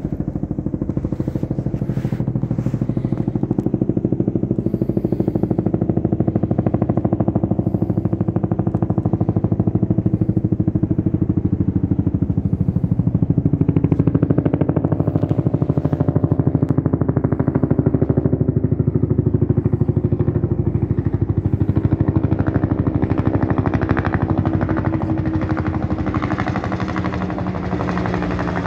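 Bell UH-1 Huey helicopter flying over, its two-bladed main rotor beating in a rapid, steady pulse over a low engine drone.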